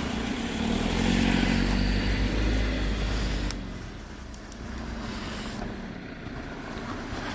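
4x4's engine revving hard under load, then cutting out abruptly about three and a half seconds in with a click: the engine has stalled.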